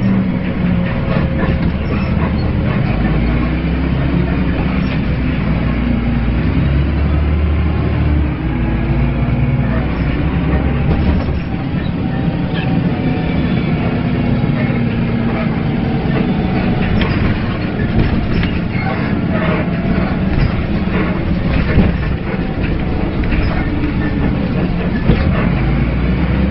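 Dennis Lance bus under way: the engine and drivetrain groan steadily, the low note shifting up and down several times. Frequent clicks and rattles come from the bodywork.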